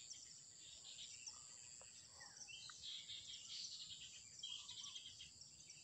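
Faint streamside ambience: a steady high-pitched drone of insects, with short runs of quick bird chirps now and then.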